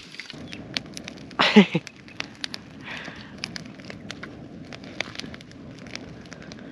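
Small campfire of dry sticks and grass crackling, with scattered sharp snaps and light knocks of split firewood being stood beside it. About one and a half seconds in, a short loud cry that falls steeply in pitch.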